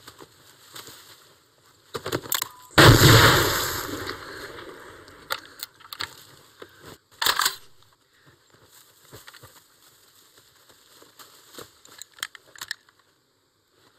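War-film gunfire sound effects: a loud bang about three seconds in with a long fading tail, and another sharp crack a little after seven seconds. Small clicks and rattles of rifles and a grenade launcher being handled follow near the end.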